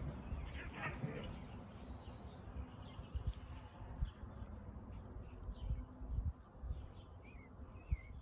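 Small birds chirping faintly in short quick phrases, over a low outdoor rumble with a few soft low thumps.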